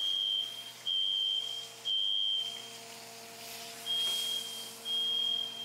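Smoke alarm beeping in a steady high tone, long beeps about once a second: three, a pause of about a second, then two more. It has been set off by smoke from venison searing in a pan.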